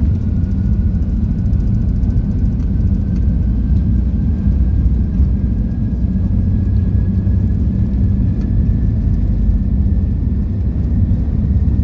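Inside the cabin of an Airbus A380-800 on its take-off roll: a steady deep rumble from the engines and the wheels on the runway, with a faint whine slowly rising in pitch as the aircraft gathers speed.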